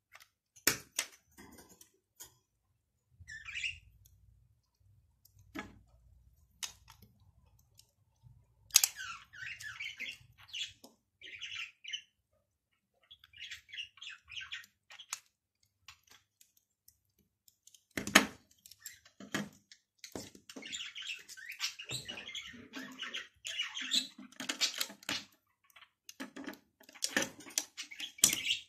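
Plastic Lego bricks clicking and knocking as they are handled and pressed together, with a few sharp snaps, the loudest about 18 s in. High bird-like chirping comes and goes at times.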